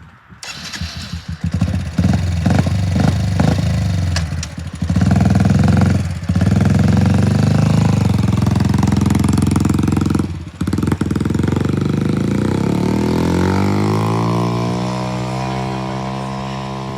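Four-wheeler (ATV) engine running under throttle. It comes in about half a second in, revs in short bursts, then runs hard with two brief drops in power. Near the end its pitch rises and holds steady.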